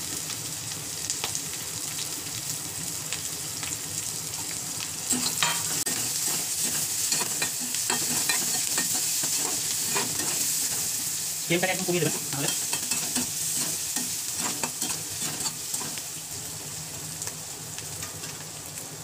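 Chopped vegetables sizzling in butter and oil in a metal kadai, with a metal spatula stirring them and scraping and clicking against the pan.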